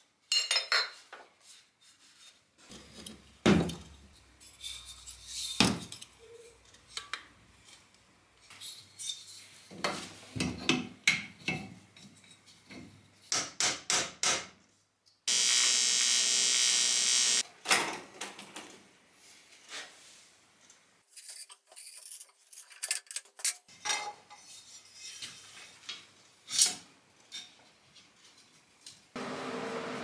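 Metal tools and bicycle parts clinking and knocking in irregular bursts as the bike is worked on. A loud steady hissing noise from a power tool lasts about two seconds just after the middle, and a steady hum starts near the end.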